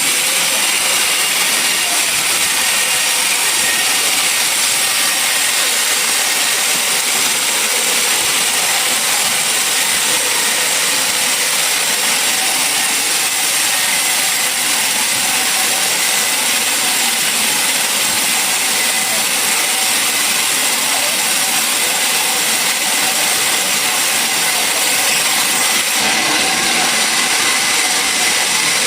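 Sawmill machinery running steadily, a loud, even noise with most of its weight in a high hiss.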